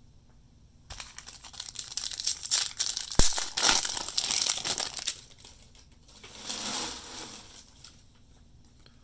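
Foil trading-card pack wrapper being torn open and crinkled in the hands: a long crackling stretch with a sharp snap in the middle, then a second, shorter crinkle.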